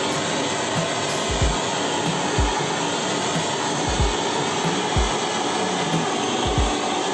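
Gas blowtorch burning with a steady hissing flame as it singes the pin feathers off a plucked chicken carcass. Low dull thuds come roughly once a second under the hiss.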